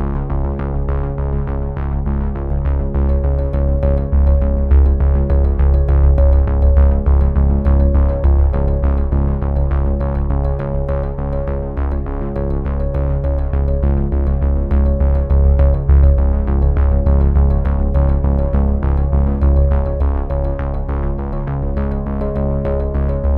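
Background music: synthesizer and keyboard tune over a steady bass and light beat.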